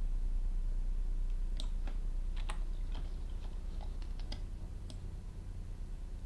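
Scattered light clicks of a computer mouse and keyboard, over a steady low hum.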